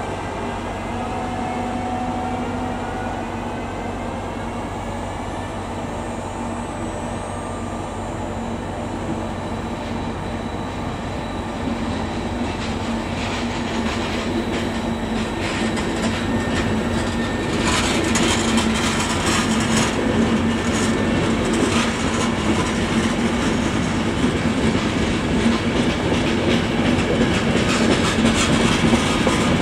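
Train on the rails growing steadily louder, its wheels clicking over rail joints more densely from about halfway through.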